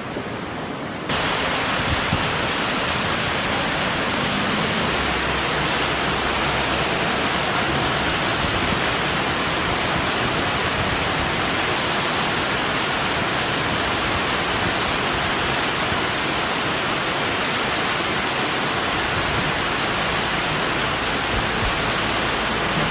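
Steady noise of rushing or falling water, loud and even. It steps up in level about a second in and then holds unchanged.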